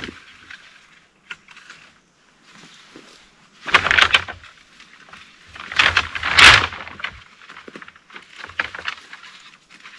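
Leafy stems of small jungle bamboo rustling and crackling as they are cut and handled, with two loud bursts about four and six seconds in.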